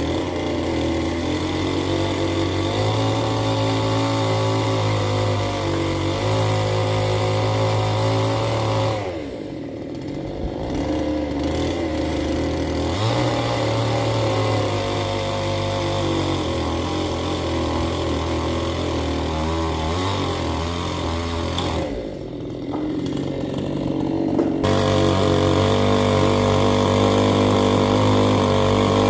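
Two-stroke gasoline Stihl chainsaw running at high revs, easing off to a lower pitch briefly about nine seconds in and again around twenty-two seconds in, then revving back up.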